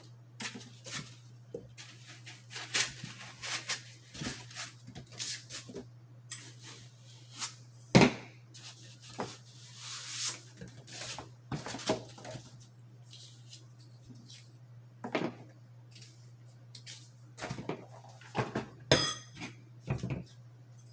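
A large riflescope being lifted out of its cardboard box and foam inserts: foam and cardboard rustling and scraping with scattered clicks and knocks, the loudest a single knock about eight seconds in, over a steady low hum.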